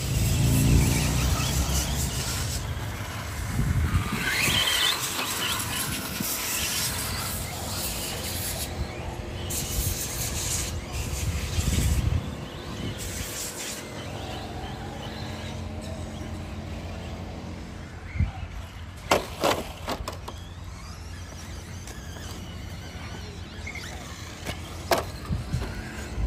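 Electric radio-controlled cars running, with high-pitched motor whine and tyre squeal coming and going. A few sharp knocks sound in the second half.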